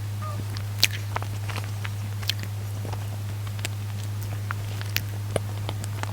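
Close-miked eating sounds of cream bread: scattered soft clicks and crackles of biting and mouth noises, over a steady low hum.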